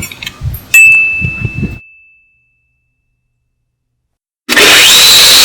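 A few light clicks, then a single metallic ding about a second in, ringing at one high pitch and fading over about two seconds. After a stretch of silence, a loud, harsh, sustained noise with a whining tone starts near the end.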